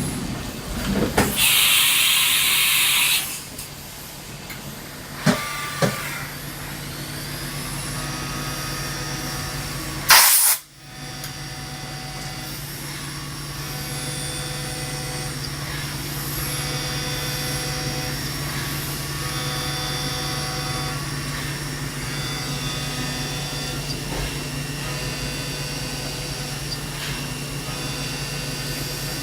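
1996 Haas VF3 CNC vertical mill running a machining cycle on an aluminium part. A hiss of air comes about a second in and lasts about two seconds, two sharp clicks follow around five seconds, and a short, very loud blast comes around ten seconds. After that there is a steady machine hum with whining tones that come and go as it cuts.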